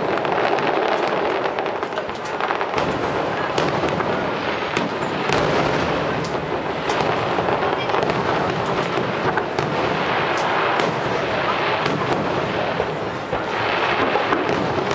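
Fireworks display: a rapid, continuous stream of bangs and crackles, with crowd voices underneath.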